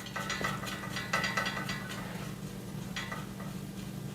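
Screwdriver driving a short screw into the steel shelf frame, clicking like a ratchet in quick bursts that stop and start a few times.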